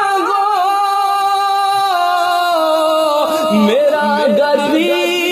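A man singing a Punjabi naat, drawing out a long note that steps down in pitch twice, then breaking into quick ornamental turns about three seconds in.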